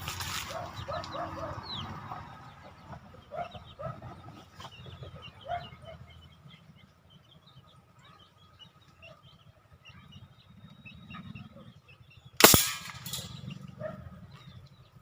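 A single sharp shot from a homemade PVC toy air gun about twelve seconds in, over faint bird chirps.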